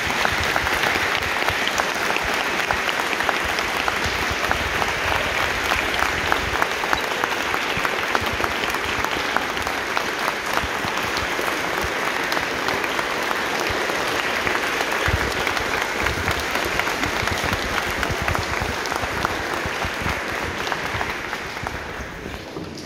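A large crowd applauding steadily, many hands clapping at once, thinning and fading out near the end.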